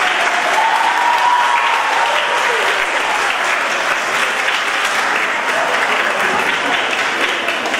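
A large audience applauding steadily, with a few voices in the crowd.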